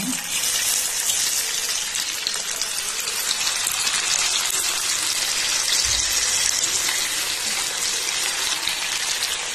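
Masala-coated chicken pieces deep-frying in hot oil in a kadai: a dense, steady crackling sizzle as more pieces are dropped into the bubbling oil.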